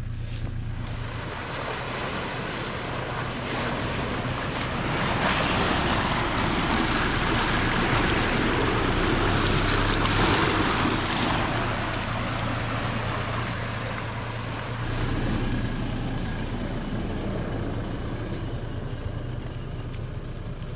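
Toyota Hilux driving along a rough dirt track: a steady engine drone under tyre and track noise that grows louder for several seconds in the middle, then eases.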